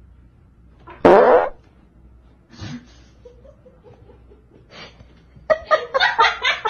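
A person farting: one loud blast, falling in pitch, about a second in. Near the end comes a quick run of short repeated sounds.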